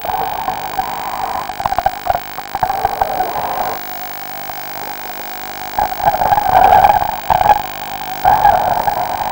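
Underwater bubbling, heard over a diver's communication line with a steady hum. The bubbling comes in bursts, loudest from about six to seven and a half seconds in and again just before the end.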